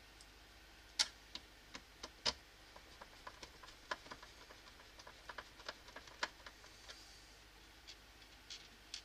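Irregular light clicks and taps of the ionizer's parts and a small tool being handled and fitted during reassembly. The loudest clicks come about a second in and just after two seconds.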